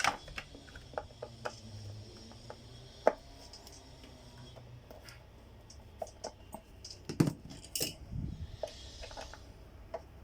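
Plastic casing parts and small hard pieces of a vacuum cleaner being handled during disassembly: scattered clicks and light knocks, one sharper click about three seconds in and a cluster of clicks and dull thumps around seven to eight seconds in.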